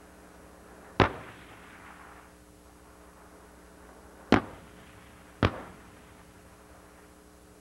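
Three sharp booms of tank gunfire on a range, each with a short echoing tail: one about a second in, a second about three seconds later, and a third a second after that.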